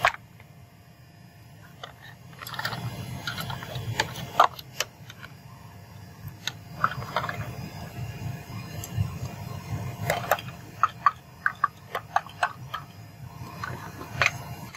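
Sharp metal knocks of a bar striking an upside-down steel muffin tin to knock cast aluminium ingots out onto concrete: scattered knocks and scrapes at first, then a quick run of about seven sharp knocks a few seconds before the end.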